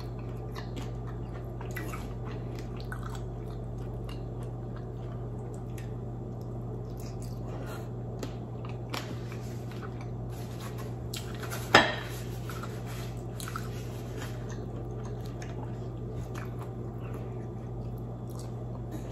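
Close-up eating sounds: chewing and small wet mouth clicks as grilled squid and rice are eaten by hand, with one sharper knock about twelve seconds in. A steady low hum sits underneath.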